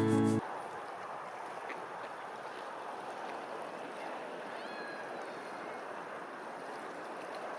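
Guitar music cuts off just after the start, leaving a steady rush of water with a few faint high chirps.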